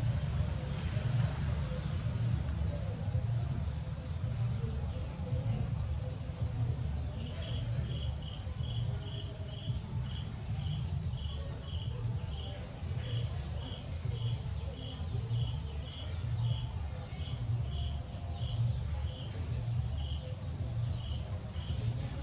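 Insects chirping: a steady high buzz with a repeated chirp, joined about seven seconds in by a second, lower chirp repeating about twice a second, over a steady low rumble.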